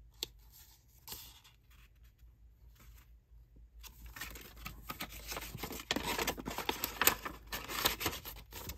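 Packaging being handled and torn open: a dense crackly rustle and tearing that starts about four seconds in and gets louder toward the end, after a few quiet seconds with a single small click.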